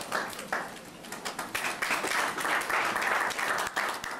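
Audience applauding, with individual claps audible. The applause dips briefly about a second in, then rises again.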